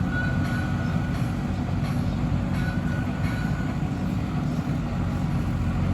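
JCB 3DX backhoe loader's diesel engine running steadily at working revs, with a faint high whine that comes in briefly twice.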